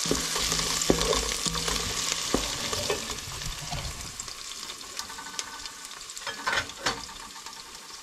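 Chopped vegetables sizzling in hot oil in a large aluminium pot, stirred with a wooden spoon that knocks against the pot now and then. After about four seconds the sizzle fades, and a few sharp clicks come from a knife cutting tomatoes on a plate.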